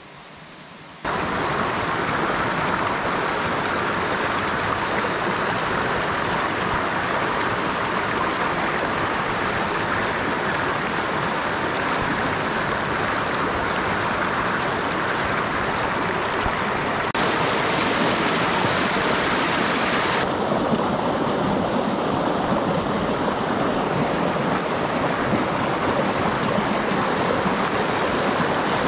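Shallow mountain stream rushing over stones and pebbles, a steady close rush of water that starts about a second in and gets louder past the middle, where it breaks white over rocks.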